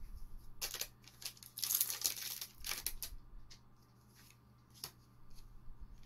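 Foil Magic: The Gathering booster pack wrapper being torn open and crinkled, loudest about two seconds in, then playing cards being slid and flicked through with a few light ticks.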